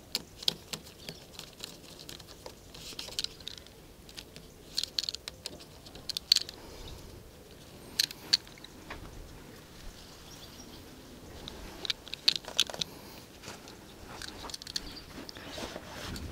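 Irregular light clicks and crinkling from gloved hands working a hex key on a bicycle brake lever clamp bolt and handling small parts, in loose clusters with short pauses.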